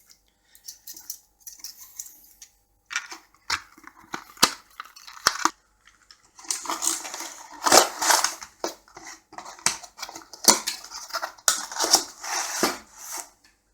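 Hard plastic packaging being handled: scattered clicks and taps, then several seconds of crinkling and rustling with sharp snaps, as a CPU's clear plastic clamshell is opened.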